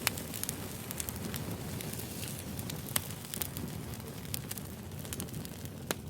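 Wood fire crackling, with scattered sharp pops over a low, steady rumble.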